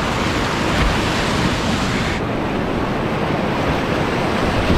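Whitewater of a river rapid rushing and splashing close around a kayak as it runs down a rocky chute. It makes a loud, steady rush of water whose hiss thins slightly about two seconds in.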